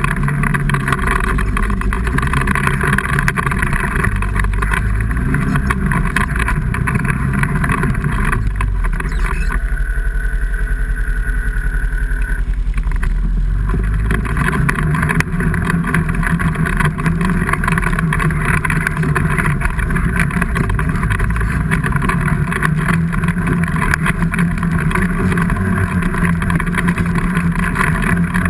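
Vehicle engine running loudly and steadily, the higher-pitched noise easing off briefly about nine seconds in before coming back.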